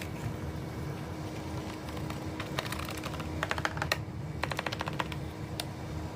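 Scattered clicks over a steady low hum, with two short runs of rapid, evenly spaced clicking about three and four and a half seconds in.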